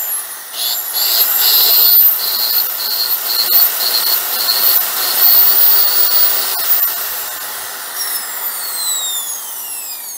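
Bosch PSB 550 RE corded drill's brushed universal motor running free at high speed with a high-pitched whine, test-run on newly fitted carbon brushes. From about eight seconds in the whine falls steadily in pitch as the motor slows.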